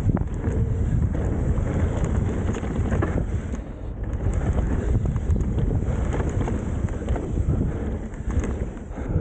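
Wind buffeting the microphone and tyres running over dirt and rock as a mountain bike descends a trail at speed, with irregular knocks and rattles from the bike over rough ground.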